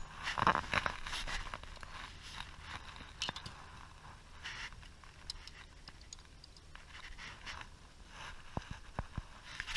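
Scrapes, rustling and light clicks of a small fish being swung aboard a bass boat and unhooked by hand. The loudest scuffle comes about half a second in, with scattered clicks after it.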